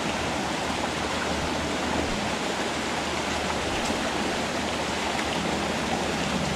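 Small creek running, a steady even rush of flowing water.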